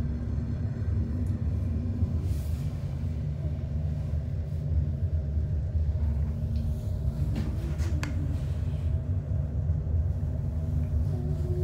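Steady low rumble and hum inside an aerial cable car cabin as it rides along its cable, with a few faint clicks.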